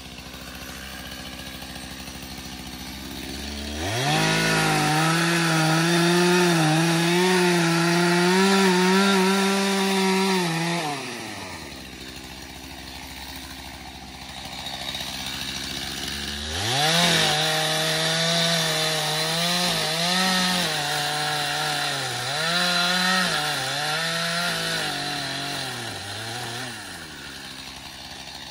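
A two-stroke Stihl chainsaw idles, then runs at full throttle twice: about four to eleven seconds in, and again from about sixteen seconds until near the end. In the second run the pitch dips again and again as the chain bites into wood. Between the runs the saw drops back to idle rather than stopping.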